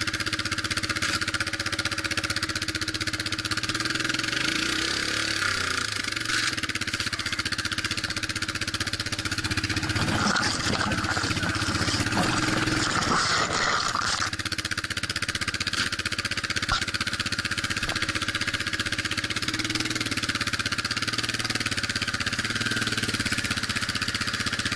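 Off-road vehicle's engine running steadily at low revs. About ten seconds in there is a louder, rougher stretch lasting some four seconds.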